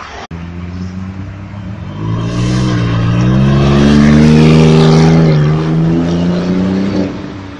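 Sports car driving past while accelerating, its engine note climbing and swelling to a peak about four seconds in, then fading as it moves away.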